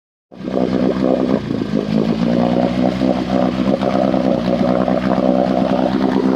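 Carbureted engine with a choke, running steadily at idle. It cuts in about a third of a second in.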